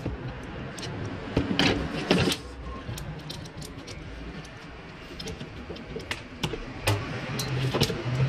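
Scattered clicks and metallic rattling from a Renault Mégane 1 window regulator being handled: pliers on the cable fitting and the plastic carrier on the steel rail, with a louder rattle about one and a half to two seconds in.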